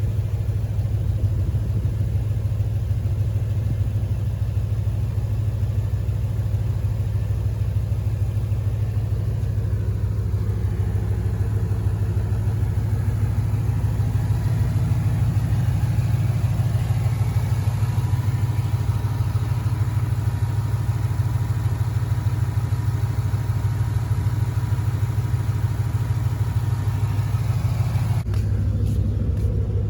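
2013 Ford Mustang GT's 5.0 Coyote V8 running steadily, with the engine knocking that the owner takes for rod knock.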